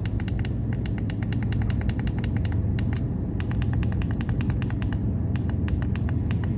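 Plastic hour and minute buttons on an H251US alarm clock radio being clicked over and over in quick runs, several clicks a second with a couple of brief pauses, to step the clock time forward. A steady low hum runs underneath.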